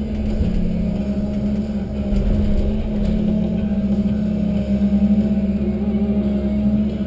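Tigercat 1075B forwarder's diesel engine and crane hydraulics running steadily, heard inside the cab while the crane swings a grapple load of logs. A constant low hum, with fainter tones above it that waver a little as the crane works.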